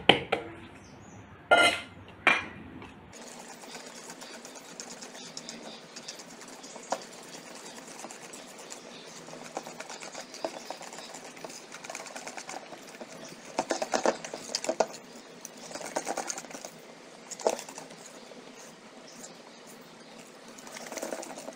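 Wire whisk beating thick chocolate cake batter in a metal bowl: fast continuous clicking and scraping of the wires against the bowl, coming in louder spurts, after two sharp knocks near the start.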